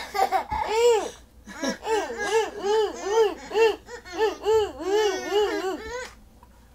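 Young children laughing: a rapid, even run of high-pitched giggles, about three or four a second, that stops near the end.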